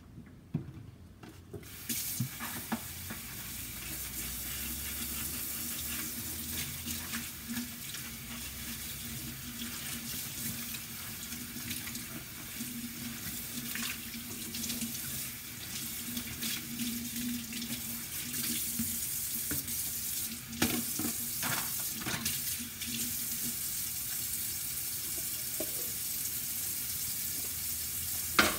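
Kitchen faucet running into the sink, starting about two seconds in, with scattered knocks and clinks of things being handled at the sink.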